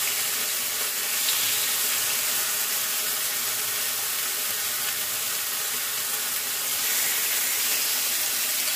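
Marinated chicken breast sizzling steadily as the pieces are laid in a hot ridged grill pan on a gas burner.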